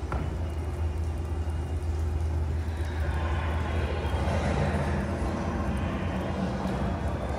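Steady low rumble of outdoor night ambience, with a rushing hiss that swells up about three seconds in and fades again near the end.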